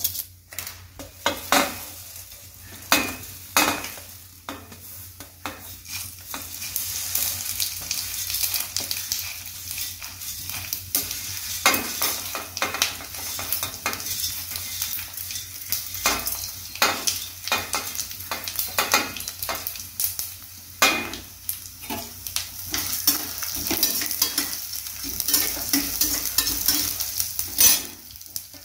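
Whole spices (dried red chillies, bay leaf and seeds) sizzling in a little hot oil in a stainless steel pan, the sizzle growing after several seconds. Frequent clinks and scrapes of metal utensils against the steel pan as the spices are tipped in and stirred with a slotted spatula.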